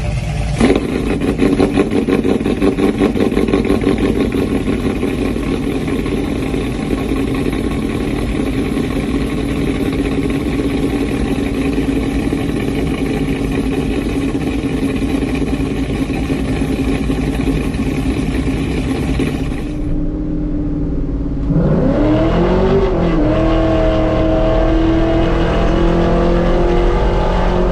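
A V8 engine idling with a pulsing, uneven rhythm. After an abrupt change about 20 s in, it revs up around 22 s in and holds at a higher, steady speed.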